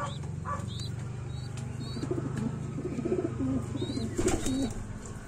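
Pigeons cooing, a low throaty coo that wavers up and down through the middle, over short high chirps repeating about twice a second.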